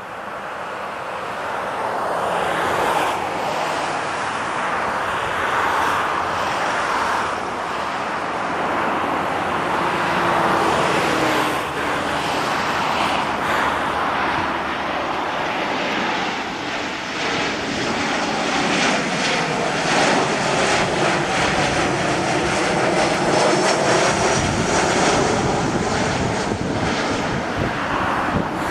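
Embraer E190 airliner's twin GE CF34 turbofans running on landing approach, gear down, as the jet passes low overhead. The engine noise swells over the first few seconds and stays loud, with a high whine coming through in the second half.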